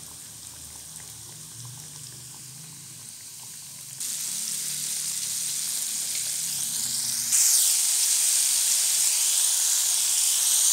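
Flour-coated chicken pieces deep-frying in hot oil, sizzling. The sizzle is faint at first, then jumps sharply louder in two sudden steps, about four and about seven seconds in.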